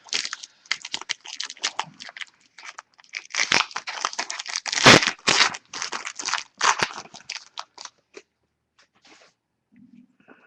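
Foil wrapper of a Panini Momentum football card pack being torn open and crinkled: a dense run of crackles for about eight seconds, loudest about halfway through, then a few faint rustles.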